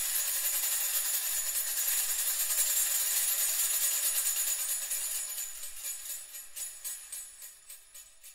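Metal jingles shaken continuously in a bright, dense jingling rattle that thins into separate shakes after about five seconds and dies away near the end.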